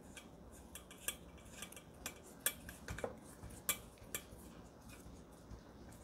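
Faint, irregular metallic clicks and scrapes of a screwdriver turning a small screw that fastens a mounting bracket to the base of a Cooler Master Hyper 212 CPU heatsink.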